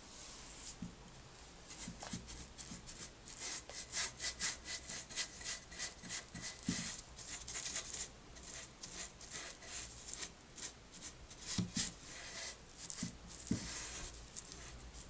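Paintbrush strokes on a wooden chair, brushing wet black paint back and forth in a quick run of strokes, about three a second, starting about two seconds in.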